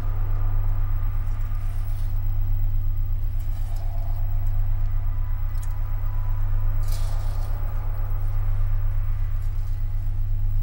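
Dark ambient electronic drone: a steady, deep hum with a faint hiss and a few scattered crackles above it.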